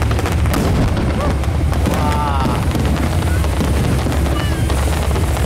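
Aerial fireworks bursting in quick succession: a continuous rumble of booms with sharp cracks and crackling throughout.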